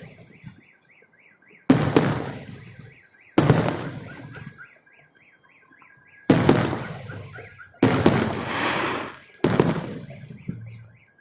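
Salute fireworks shells bursting, five loud bangs a second or two apart, each echoing away. Between the bangs a car alarm wails in a steady rapid pulse.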